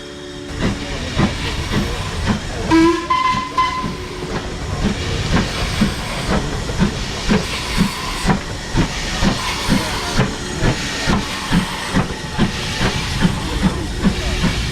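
Ivatt Class 2MT 2-6-0 steam locomotive under way, its exhaust beats coming about twice a second and slightly quickening over steady steam hiss. A short whistle sounds about three seconds in.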